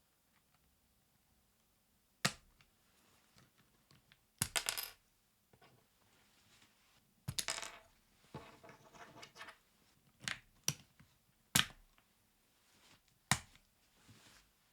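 Small hard objects being handled and set down on a desk: scattered sharp clicks and two short clattering rattles.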